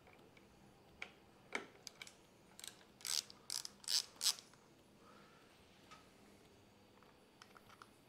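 Small T20 Torx driver ratcheting as a screw is backed out of a handlebar switch housing: a few separate clicks, then four quick rattling ratchet bursts about three to four seconds in, and light ticks near the end.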